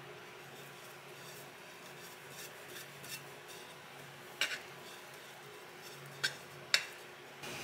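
Metal palette knife working chocolate ganache on a cake and clinking against the aluminium cake turntable: a close pair of sharp clinks about halfway through and two more over the next two seconds, over a faint steady kitchen hum.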